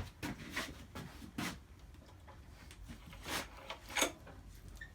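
Recoil starter rope on a 3.5 horsepower edger engine pulled to turn the engine over for a spark test, heard as several short rasps and clicks with the loudest pair near the end.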